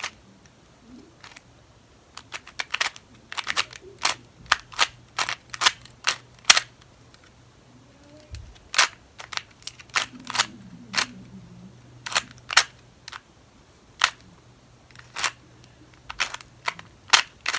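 Plastic clicks of a 2x2 Rubik's cube's layers being twisted by hand. It is an irregular series of sharp clicks, some coming in quick runs of two or three.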